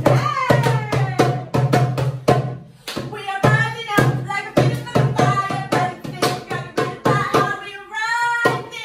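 A hand drum beaten in a quick steady rhythm, about four or five strokes a second, with a woman singing loudly over it in long sliding notes.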